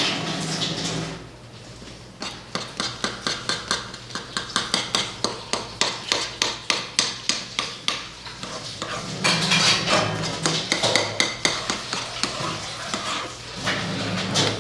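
Metal spoon stirring thick cooked oatmeal in a pan, clinking and scraping against the pan in a quick rhythm of about four strokes a second, with heavier scraping stretches later.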